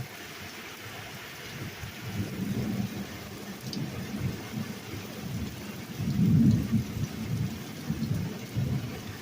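Steady rain falling, with a low, rolling rumble of thunder that builds from about two seconds in, is loudest around six seconds in and trails off near the end.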